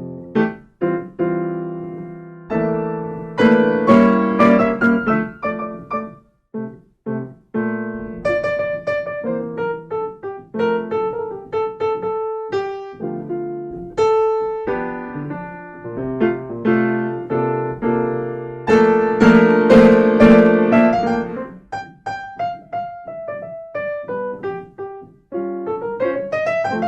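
Solo keyboard in a piano voice playing chords and melodic runs, each note struck and left to die away, with a couple of short pauses about six to eight seconds in.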